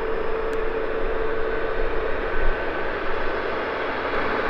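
Jet airliner engines running steadily, a constant whine over an even rush, with a second, higher whine coming in about a second and a half in; the aircraft is a Boeing 737 MAX 8 with CFM LEAP-1B engines.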